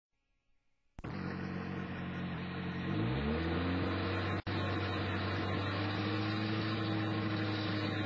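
Engine of a homebuilt miniature sawmill starts sounding abruptly about a second in, running steadily. Around three seconds in it revs up and then holds at a higher steady speed, with a brief cut-out a little past halfway.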